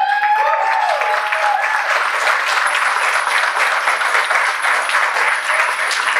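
Guests applauding, a dense steady patter of many hands clapping. Over it, one person calls out a long rising cheer that holds for about two seconds at the start.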